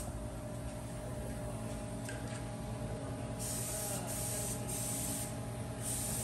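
Air-fed paint spray gun hissing as black paint is sprayed onto a truck frame: three half-second bursts about halfway through, and another starting near the end, over a steady hum.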